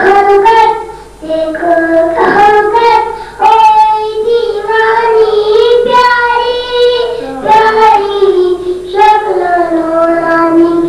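A boy singing a naat, an Urdu devotional poem, solo into a microphone in long held, wavering melodic phrases with brief pauses for breath.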